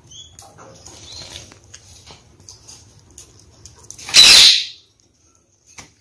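Wet red-crowned parakeet (kakariki) just out of its bath: faint high chirps and rustling, then about four seconds in a loud, brief flurry of wings and feathers that cuts off suddenly.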